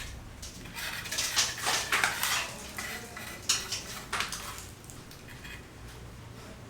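Clinking and clattering of hard objects, with several sharp knocks in the first few seconds, then quieter.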